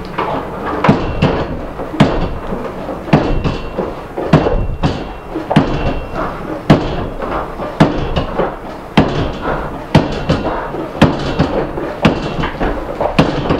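Soundtrack music driven by a heavy percussive hit about once a second, evenly spaced, over a held backing with a few sustained tones.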